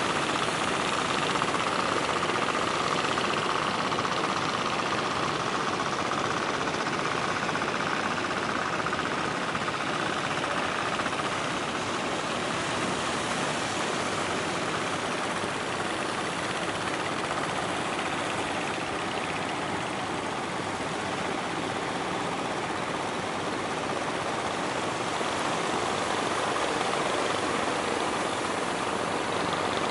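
Boat engines running steadily as motorised fishing boats cross open sea.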